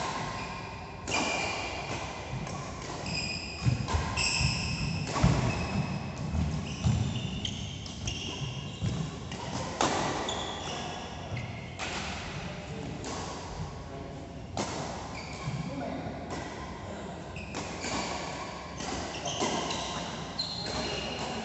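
Badminton doubles rally: irregular sharp racket strikes on the shuttlecock and footfalls on the court, with short high sneaker squeaks on the court mat and players' voices in the background.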